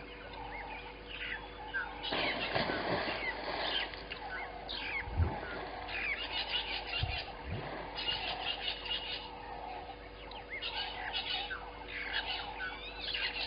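Wild birds chirping and calling, many short rising and falling notes, with bursts of fast rattling chatter. A brief rushing noise comes about two seconds in, and two low thumps fall around the middle.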